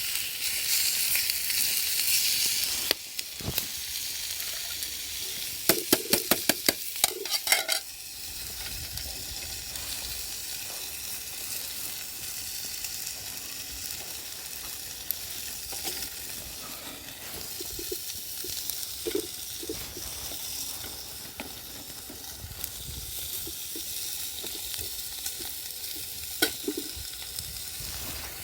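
Food sizzling as it fries in a pan over a campfire, louder for the first few seconds and then settling to a quieter steady sizzle. A quick run of sharp clicks comes about six seconds in, and a few single clicks follow later.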